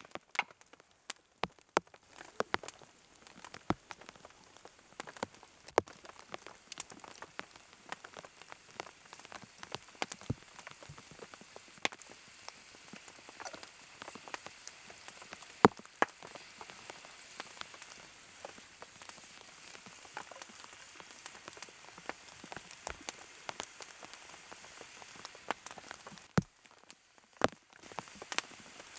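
Rain: a steady light hiss with many irregular, sharp drop taps close by.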